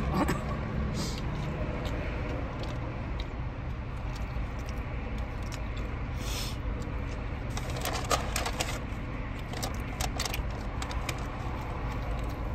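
Steady low rumble of a car's running engine heard inside the cabin, with scattered light clicks and crinkles from things being handled, busiest after about eight seconds in.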